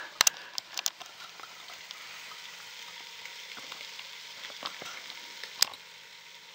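Rabbit livers frying in a covered pan: a steady sizzle with scattered crackles. There are a few sharp clicks in the first second and one loud pop near the end.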